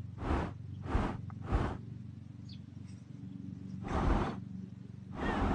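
A microphone in a cat's collar camera picking up handling noise as the cat walks: about half a dozen short rubbing scuffs over a low steady hum.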